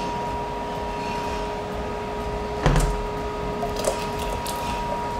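A steady two-tone electrical hum runs throughout. About halfway through there is a single dull thump, followed by a few light clicks.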